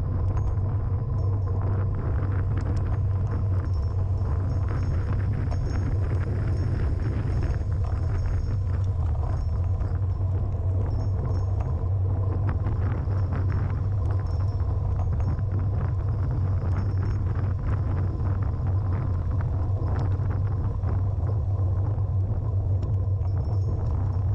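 Wind rushing over the microphone of a handlebar-mounted camera on a road bike descending fast: a steady low rumble, mixed with tyre and road noise and small bumps.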